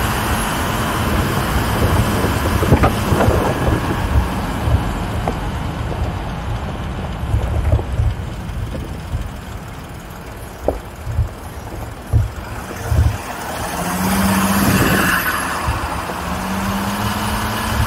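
Mercedes G-Class off-roader driving over loose gravel: the engine runs steadily under heavy low rumble on the microphone, with scattered clicks of stones under the tyres. The engine note swells and rises twice in the last few seconds as it pulls away.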